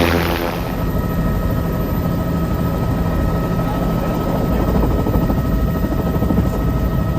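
Helicopter running in flight: a steady, loud drone with a deep rumble and a few thin steady high tones.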